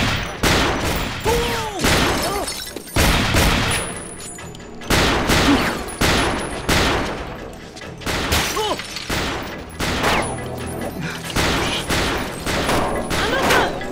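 A long series of handgun shots fired in quick succession, roughly one every half second to a second, each a sharp crack that dies away quickly.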